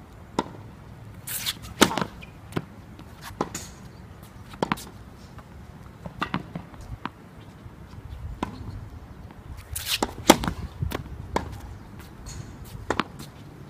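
Tennis balls being struck by rackets and bouncing on the court during a rally: a string of sharp, irregularly spaced pops and thuds, about a dozen, the loudest about 2 and 10 seconds in.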